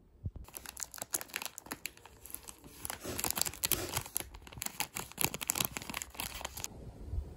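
Plastic snack wrapper crinkling and rustling as it is handled and opened. The crinkles start suddenly about a third of a second in and are busiest in the middle, then die away near the end.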